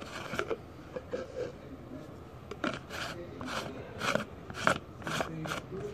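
Red plastic screw lid being twisted on a clear jar, its threads rubbing in a run of short scraping strokes about two a second, strongest in the second half.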